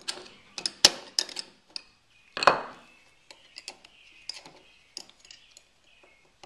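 Small steel drum-brake parts (shoe, clips, springs and self-adjuster) clicking and clinking against each other as they are handled, with a couple of louder metallic knocks about one second and two and a half seconds in that ring briefly.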